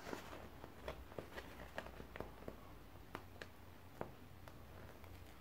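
Faint, scattered crackles and ticks of fingers picking at and peeling back the plastic protective film on a diamond painting canvas.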